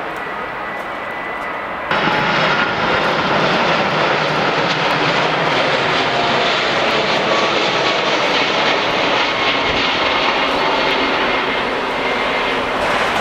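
Jet airliner's engines: a steady, loud noise of a plane near the runway, jumping suddenly louder about two seconds in.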